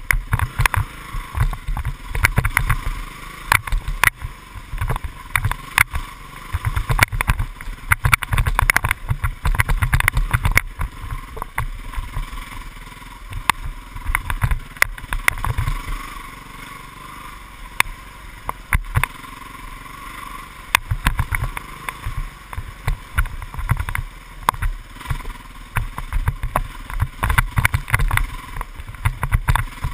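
Dirt bike engine running, heard muffled from a helmet-mounted GoPro, with frequent low thumps and knocks as the bike rides over a rough trail. It goes quieter and steadier for a few seconds around the middle.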